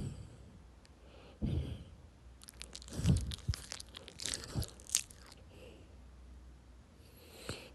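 A dog's mouth noises: a low snore-like breath about a second and a half in, then about three seconds of wet smacking, chewing-like clicks, and one more click near the end.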